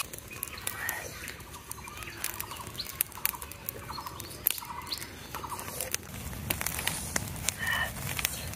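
Dry straw and twigs crackling and popping in an open fire, with many small irregular snaps.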